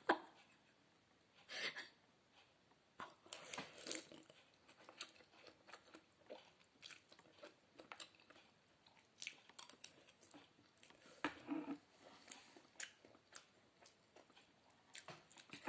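Faint, close-up chewing and mouth sounds of a person eating spicy noodle soup: irregular small smacks and clicks with a few louder bites.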